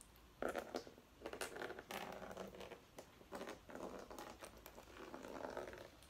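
Water pouring from a small narrow-necked glass bottle into an empty plastic tub, splashing and trickling in uneven spurts from about half a second in.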